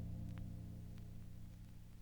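A gong's low ringing dying away, its many overtones fading out near the end, with a few faint clicks over it.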